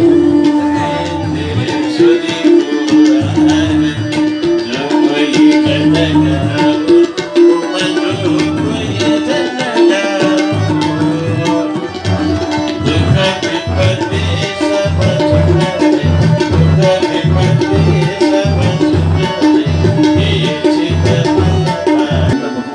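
Live Hindu bhajan music. A tabla beats a steady rhythm under a sustained melody line.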